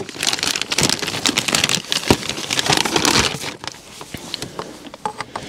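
Crinkling and rustling with many sharp clicks while a turbo boost hose is handled, busiest for the first three and a half seconds, then fading to a few light clicks and knocks.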